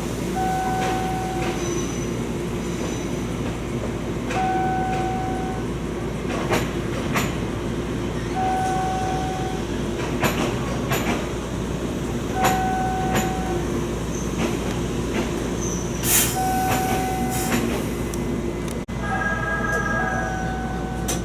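An electronic two-note chime repeats about every four seconds over the steady hum of a standing electric train. Near the end a different chime of several tones sounds, along with a few clicks.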